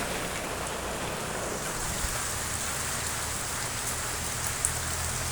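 Steady rain falling, with an occasional sharper drip.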